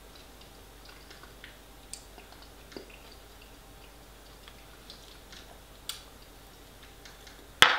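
Quiet eating sounds from a metal spoon scooping pie filling and a person chewing, with faint scattered mouth and spoon clicks. A sharp clack comes near the end.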